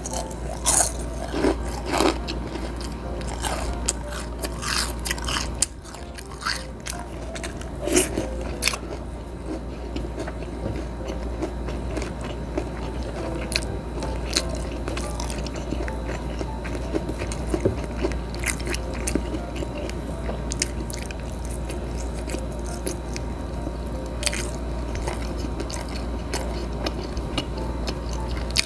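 Close-up chewing of crispy fried calamari by mouth: sharp crunchy bites and crackles over the first several seconds, settling into steady, finer chewing.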